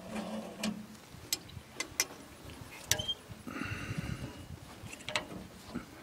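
Light metal clicks and rattles of a bungee cord's hooks being fitted around a tractor's auxiliary hydraulic lever and its frame, a handful of separate sharp ticks with a brief rustle about midway.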